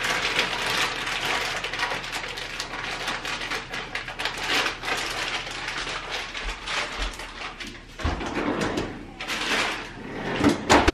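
Kitchen work at the stove and counter: a dense run of clattering and handling noise, easing off briefly about two thirds of the way through. A couple of sharp clanks near the end, the loudest sounds, come as a pan on the stovetop is handled with an oven mitt.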